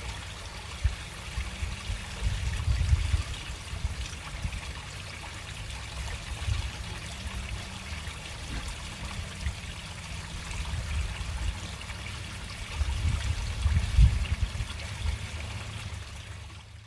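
Water running slowly through a storm drain, a steady trickle with a low rumble that swells twice.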